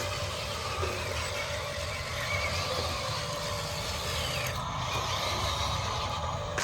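Scale RC construction machines working: a steady mechanical running hum, with small motor whines rising and falling.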